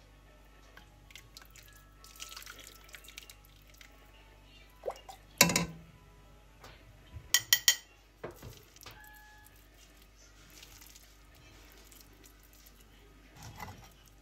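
Enamelware clanking as buckwheat is served from an enamel pot onto an enamel plate. There is one loud clank about five and a half seconds in and three quick ringing clinks about two seconds later, with light scraping before them and a softer knock near the end.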